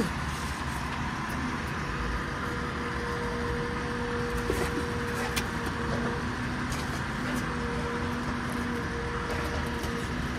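A steady engine-like drone from a running motor, with a constant low hum, and a few faint sharp smacks of boxing gloves landing.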